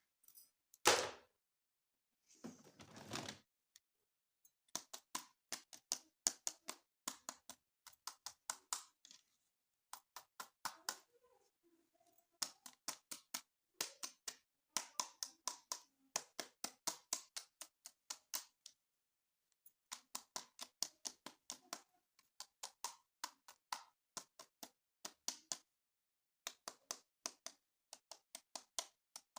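Hands handling plastic toys: a sharp knock about a second in and a brief rustle, then long runs of quick sharp clicks and taps, several a second, broken by short pauses.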